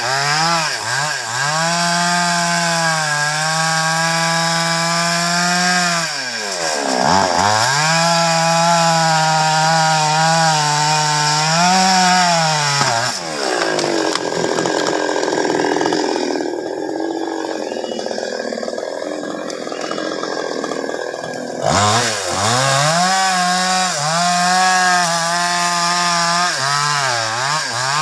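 Two-stroke chainsaw cutting baros timber, running at high revs with brief dips in engine speed. For about eight seconds midway its pitch drops and roughens as it labours under load, then it revs back up.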